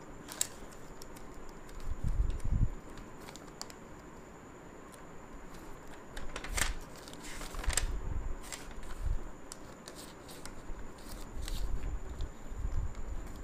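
Handling noise: paper rustling and small objects being moved, with scattered light clicks and several low bumps, over a faint steady high whine.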